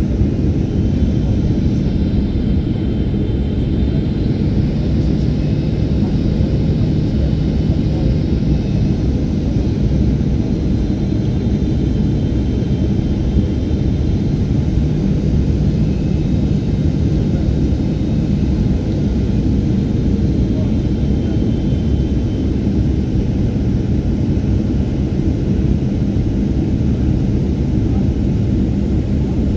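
Jet airliner cabin noise on final approach: a steady, deep rush of engine and airflow noise, with a faint high whine over the first two-thirds or so.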